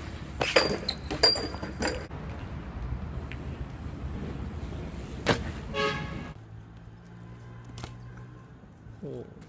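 BMX bike on paving: sharp clicks and knocks from the bike and tyres, loudest in the first two seconds, over a steady low outdoor rumble. A short pitched tone sounds about six seconds in, then the background drops to a quieter hum.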